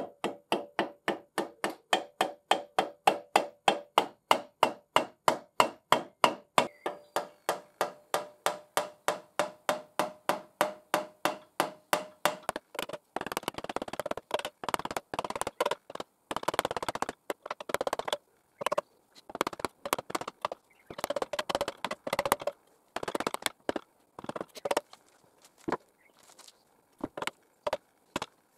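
A brass saw spine being worked onto a steel tenon-saw blade held in a vise. First comes a long run of even, ringing metallic taps, about three a second. About halfway through they give way to irregular scraping and knocking as the spine is pushed along the blade.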